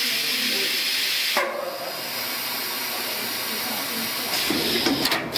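An automatic PVC refrigerator-door gasket welding machine running its cycle, giving a steady loud hiss that drops and changes about a second and a half in. A fresh burst of hiss and a few sharp clicks follow near the end.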